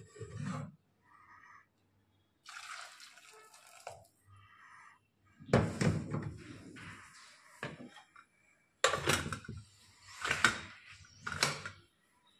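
Hot water poured into an open pressure cooker of dal, then metal clatter as the cooker's lid is put on and closed, with three sharp knocks near the end.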